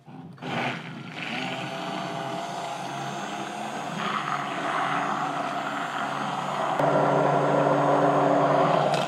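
Hand-held immersion blender motor running steadily while it blends a cheddar cheese sauce in a pot. It starts just after the beginning, gets louder about seven seconds in, and cuts off suddenly at the end.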